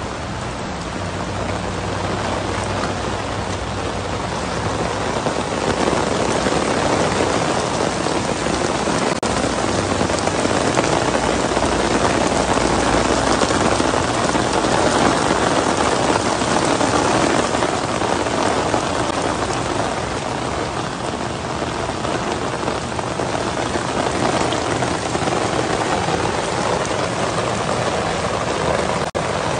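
Heavy rain pouring onto a flooded street: a dense, steady hiss of drops striking standing water, growing louder a few seconds in. A faint low hum runs underneath.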